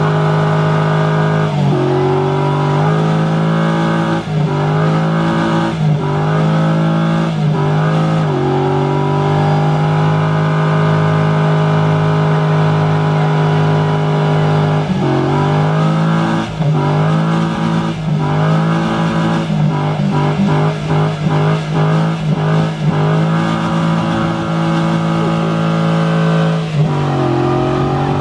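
Pickup truck doing a burnout: its engine held at high revs with the rear tyres spinning, the pitch dipping and climbing back again and again, several times in quick succession about two-thirds of the way through.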